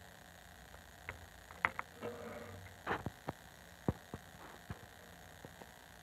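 Low steady electrical hum with about ten short, light clicks and knocks scattered through the middle seconds, like small objects being handled or tapped.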